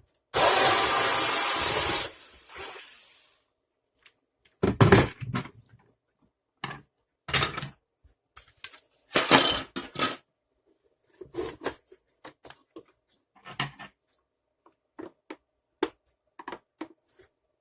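Plastic parts of a vacuum cleaner housing being handled and pried apart: scattered clicks, knocks and scraping at irregular intervals. A loud, steady noise lasting about two seconds comes near the start.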